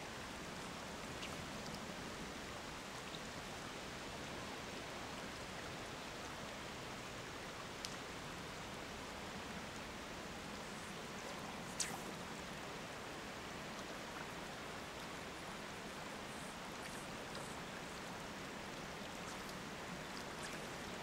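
Steady rush of a shallow river running over rocks. Two short sharp clicks sound over it, the louder one about halfway through.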